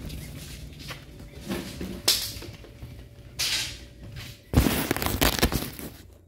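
Rustling and scraping handling noise from the recording phone, in short rough bursts. The loudest burst starts about four and a half seconds in and lasts over a second.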